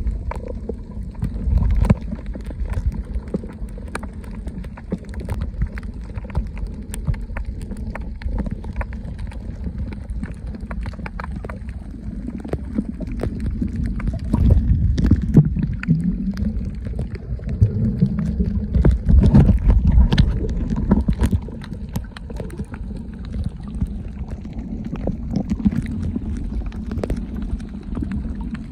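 Underwater sound picked up by a submerged camera: a constant low rumble of moving water with scattered crackling clicks throughout, swelling louder twice in the middle.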